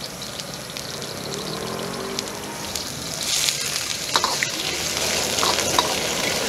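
Sliced pork kidney sizzling in hot oil in a round-bottomed steel wok, the loud hiss starting about three seconds in and building. A metal ladle clinks against the wok a few times.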